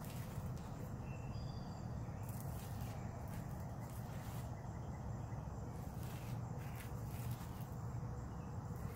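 Outdoor background noise: a steady low rumble, with a couple of faint short chirps about a second and a half in and a few brief soft hissing rustles.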